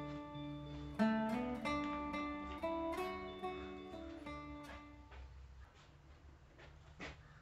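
Background music on acoustic guitar, plucked and strummed notes that fade away about five seconds in, leaving faint clicks.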